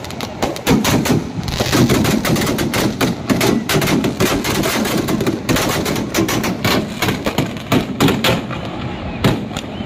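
Fireworks and firecrackers going off: a loud, dense, rapid run of cracks and bangs like machine-gun fire, continuing without a break.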